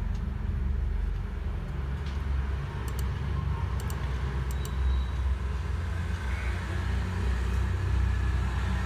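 Steady low background rumble, with a few faint, sharp clicks about three to four and a half seconds in.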